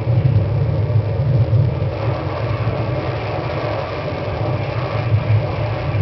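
Steady low rumble that wavers slightly in loudness, dipping a little in the middle.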